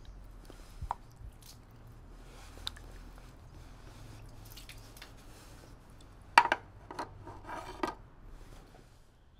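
Wooden ladles knocking and scraping against their bamboo rest and the stone water basin of a shrine purification font as a hand handles one. A few loud clacks come in a cluster past the middle, with small ticks of water dripping into the basin before them.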